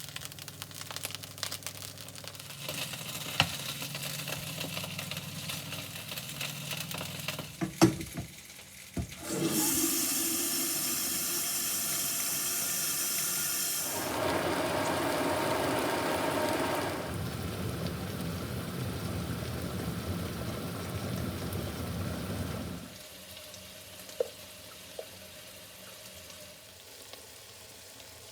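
Kitchen tap running for about thirteen seconds, the water rush changing sound partway through as it fills a vessel or sink, with small knocks and clicks of kitchen handling before it starts and after it stops.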